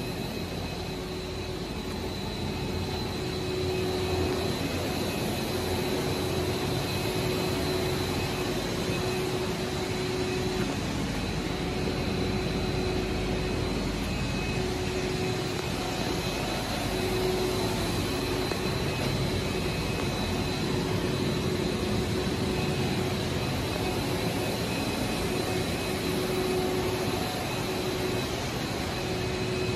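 WPC fluted wall panel extrusion line running: twin-screw extruder and caterpillar haul-off give a steady machine hum with a constant high whine. A lower tone drops out and comes back now and then.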